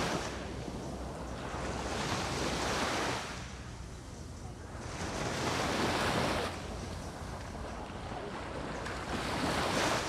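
Small sea waves breaking and washing up the sand at the water's edge, the wash swelling and fading about every three to four seconds.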